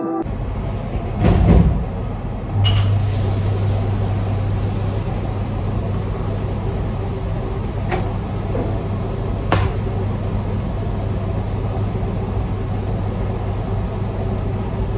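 Steady low hum of a restaurant kitchen, with a few short sharp taps as pizza dough is worked into balls by hand.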